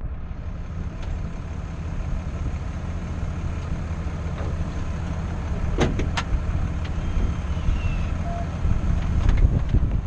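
Vehicle driving slowly on a rough dirt trail: a steady low engine and tyre rumble, with two sharp knocks close together about six seconds in.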